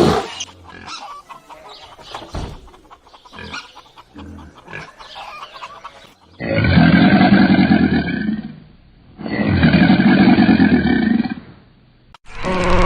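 Faint, short, scattered animal sounds for about six seconds, then two loud, long animal calls of about two seconds each, one after the other with a short pause between.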